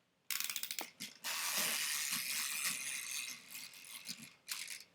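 Wind-up toy chicken's clockwork: a short run of quick ratchet clicks as it is wound, then the mechanism whirring and rattling for about three seconds as it runs, with a last short burst of clicks near the end.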